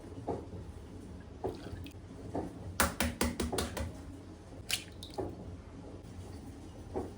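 Kitchen work sounds: soft knocks about once a second, and a quick run of six or so sharp clicks about three seconds in, with one more sharp click a little later.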